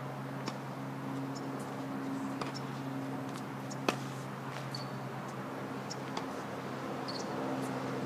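Outdoor tennis play: one sharp pop of a tennis ball about four seconds in and a few fainter taps, over a steady low hum.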